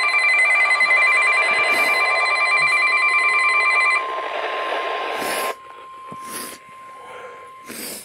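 Emergency Alert System tones over a radio with static: a loud, pulsing alert made of several steady tones for about four seconds, then a single steady tone that carries on alone, quieter, until just before the end. There are a few brief bursts of crackle along the way.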